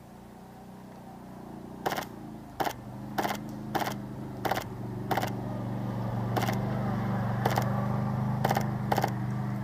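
Polarstar HPA-powered airsoft DMR firing about ten single shots in quick succession, one every half-second to second, each a short sharp report.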